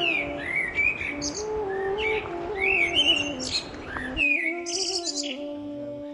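Small birds chirping over a slow background melody of held, gliding notes. A steady background hiss cuts out suddenly about four seconds in, while the melody and chirps carry on.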